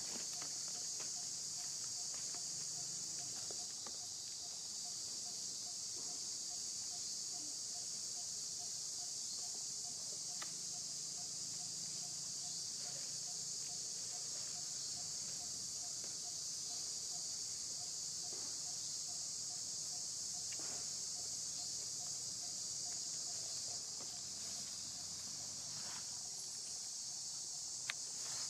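A steady, high-pitched chorus of insects, with a faint fast-pulsing lower note and a few soft clicks.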